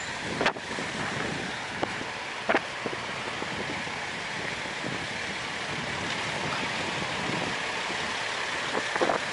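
Wind buffeting the microphone: a steady rushing noise, broken by a couple of sharp knocks.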